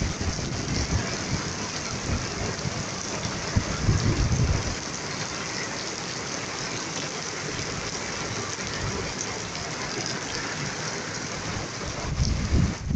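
Heavy downpour of rain and wind, a steady hiss of rain pounding the wet street and roofs. Low rumbles come and go in the first five seconds or so.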